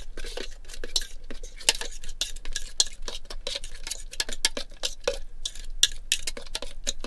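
A fork stirring freeze-dried scramble mix with hot water in a metal cook pot, scraping and clinking against the pot in quick, irregular ticks.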